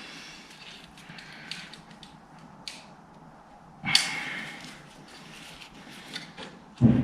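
Hand-tool and parts handling noise while stubborn old rubber coolant hoses are worked off a motorcycle engine: small clicks and scrapes, a sharp metallic clank with a short ring about four seconds in, and a dull thump near the end.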